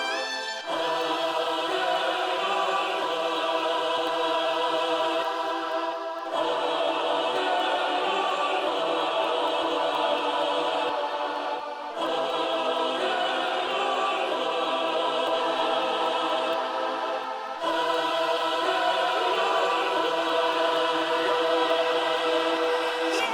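Slow background music of sustained chords with a choir-like sound and no beat, the chord changing about every six seconds.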